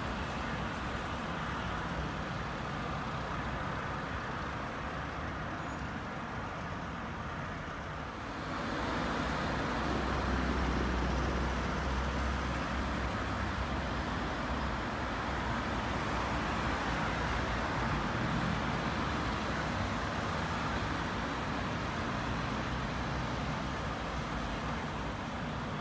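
City street traffic noise: a steady wash of passing cars and tyre noise. It swells about eight seconds in as a vehicle passes close, with a deep low hum for a few seconds.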